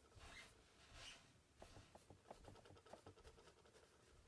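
Faint scratchy strokes of a paintbrush on a painting panel, with a few small ticks.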